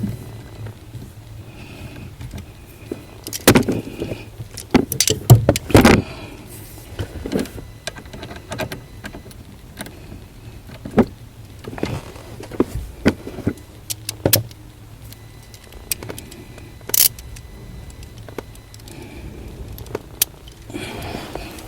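Irregular sharp metallic clicks and knocks of tools and parts being handled, over a steady low hum, with a cluster of louder knocks about four to six seconds in.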